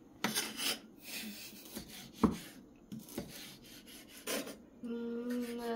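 Kitchen utensils scraping and knocking against dishes during food preparation, in a handful of separate strokes. A voice comes in near the end.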